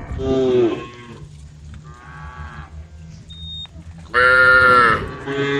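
Cows mooing: a call trailing off at the start, a faint one in the middle, then a loud call about four seconds in and another starting near the end.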